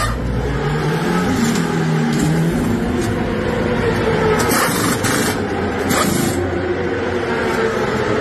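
Pneumatic wheel guns fire in short bursts during a motorcycle pit stop, the two strongest about four and a half and six seconds in. Under them, a motorcycle engine runs steadily.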